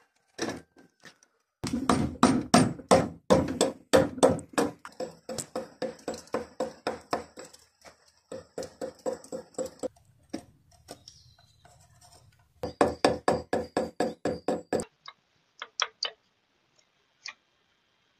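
Carving chisel working wood: runs of sharp, evenly spaced knocks, about four a second, in three bursts with short pauses, then a few scattered clicks near the end.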